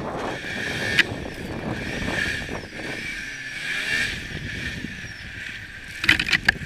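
Turbocharged Yamaha Sidewinder B-TX snowmobile engine running under load on a hill climb, its level rising and falling with the throttle. A sharp knock comes about a second in and a quick cluster of clacks near the end.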